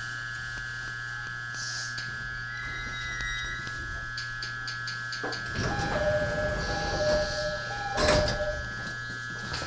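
Interior running noise of a JR E217-series commuter train: a steady hum with wheel clicks over rail joints. About five and a half seconds in, the rumble gets louder and a two-tone bell sounds three times, low and high, each pair about a second long.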